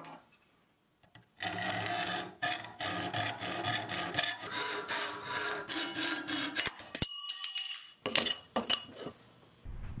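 Hacksaw cutting through aluminium angle stock with steady back-and-forth strokes, and the angle ringing under the blade. A sharp click comes about seven seconds in, followed by a few short strokes.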